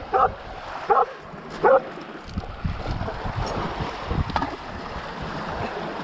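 A dog gives three short barks about a second apart. Then small waves wash over a pebble shore.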